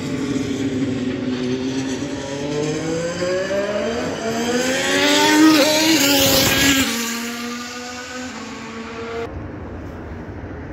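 Ferrari SF-21 Formula 1 car's turbocharged V6 engine: the note drops as the car slows, then climbs steeply as it accelerates past, loudest about five to six seconds in. Just before seven seconds in the sound cuts off abruptly to a lower, steadier, more distant engine note.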